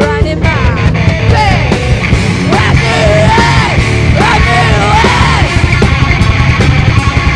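Nu-metal band playing loud heavy rock, with a yelled, screamed vocal over dense guitars and drums.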